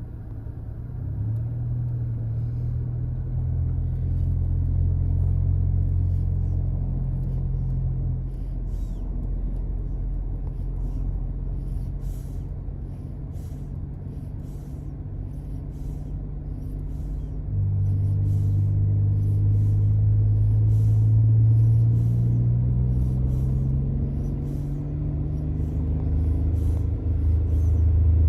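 Car cabin noise on the move: a steady low engine and road hum that gets louder about two-thirds of the way through, with the engine note climbing as the car speeds up. Faint short hisses recur roughly once a second.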